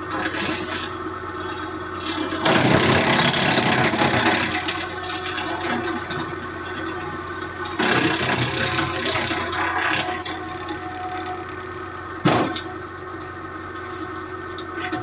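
Engine of a hydraulic wood chipper running steadily. Twice it gets louder and noisier for a couple of seconds as branches are chipped, and there is one sharp knock near the end.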